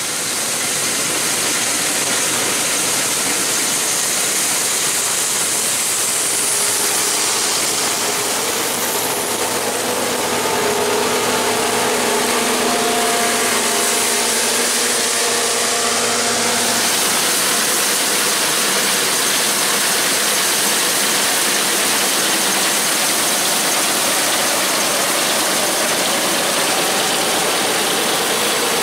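Combine harvesters running steadily while cutting rapeseed: a dense, continuous din of engine and threshing machinery, with a faint whine in the middle that fades about two-thirds of the way through.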